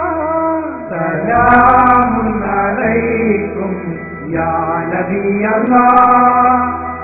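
Background music: a male voice singing a chant in long, drawn-out notes, with a steady low hum underneath.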